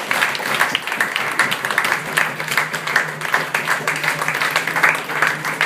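Audience applauding with dense, steady hand-clapping. A low steady hum comes in about two seconds in.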